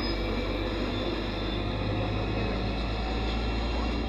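Cabin noise of a NefAZ 5299 city bus under way: the steady drone of its Cummins ISBe diesel engine and drivetrain, mixed with road noise.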